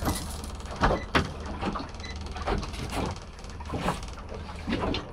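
Irregular knocks and clatter of a landing net and a struggling fish being lifted into a fiberglass boat and set on the deck, over a steady low rumble.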